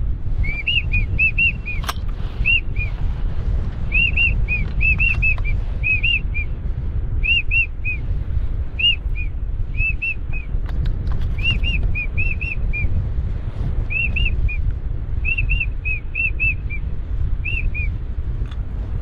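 Whistled duck calls: short peeps that rise and fall, in quick groups of two to four, repeated every second or so over wind rumbling on the microphone.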